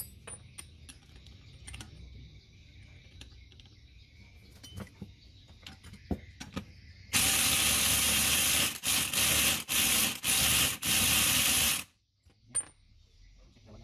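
Light metallic clicks and taps from handling small parts, then a compressed-air tool hissing loudly in a run of short bursts for about five seconds before it cuts off sharply.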